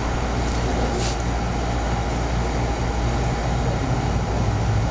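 Steady low hum of background machinery, with a brief faint click about a second in.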